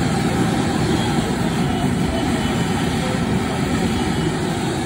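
Gas burner under a street-food wok running with a steady, continuous rushing noise, the wok of Manchurian and cabbage being stir-fried over it.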